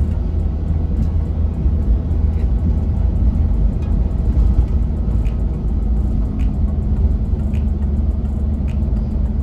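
Steady low rumble of a car driving, heard inside the cabin: engine and tyre noise on the road, with faint light clicks now and then.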